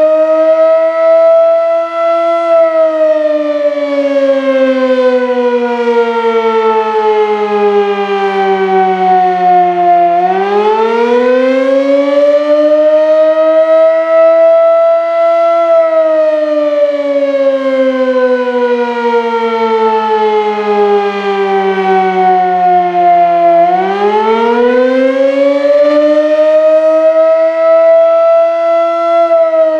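Sterling M-5 mechanical fire siren wailing: its loud, pitched tone slides slowly down and then climbs back up, twice, each climb quicker than the fall.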